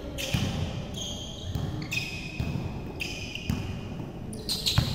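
A basketball being dribbled on a hard court, bouncing roughly every half second, with short high squeaks in between.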